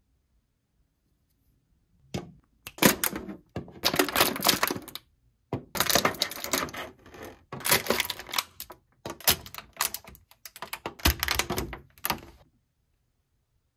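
Clear plastic blister tray crackling and clicking in several bursts as small plastic figurines are pried out of it. The crackling starts about two seconds in and stops shortly before the end.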